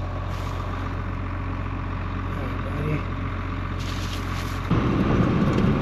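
A vehicle engine idling with a steady low hum; near the end a louder low rumble sets in suddenly.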